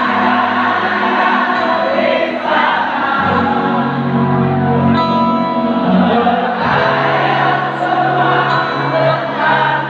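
Live band playing amplified music over a concert PA in a large arena, with many voices singing along. It is loud and continuous.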